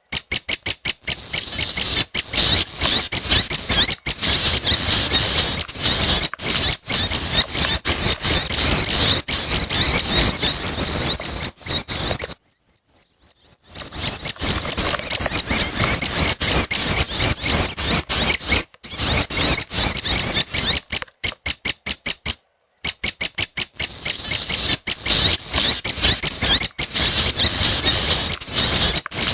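Young red-headed prenjak giving a fast, high, squeaky chatter of calls in quick succession. This is the begging chatter of a fledgling. The calls break off for a second or so about twelve seconds in.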